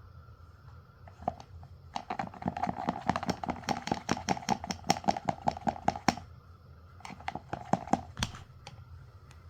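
Slime being squeezed and worked by hand, making a dense run of small clicks and pops for about four seconds, then a shorter run after a brief pause.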